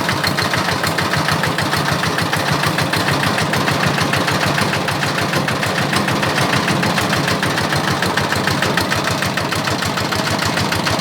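Kubota RD 65 DI-1S horizontal single-cylinder diesel engine running steadily, with a fast, even knocking beat.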